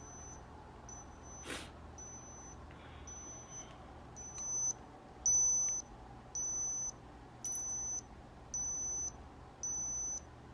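Digital thermometer beeping, a high electronic tone repeated about once a second in short beeps that grow louder partway through: the signal that the temperature reading is done. A single click sounds about a second and a half in.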